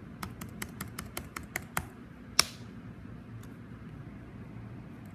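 Typing on a computer keyboard: a quick run of about nine keystrokes, roughly five a second, then one much louder keystroke about two and a half seconds in and a single faint one later, over a low steady hum.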